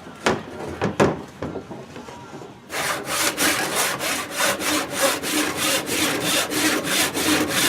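Hand saw cutting through a wooden stool leg. A few slow, separate strokes come first, then from about three seconds in a fast, steady back-and-forth sawing rhythm of roughly three to four strokes a second.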